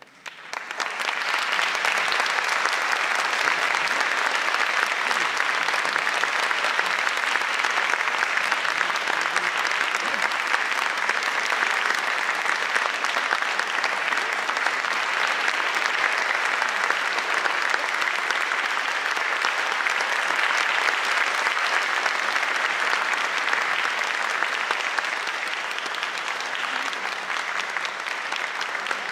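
Applause from a hall audience and the choir on stage, a dense steady clapping that swells up sharply in the first second and holds, easing off a little near the end.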